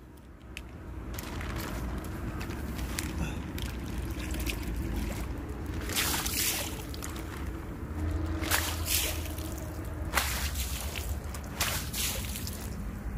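Water scooped up in a plastic bag and thrown out in splashes onto a muddy concrete slab, rinsing the mud away, several splashes in the second half over a steady wash of water noise.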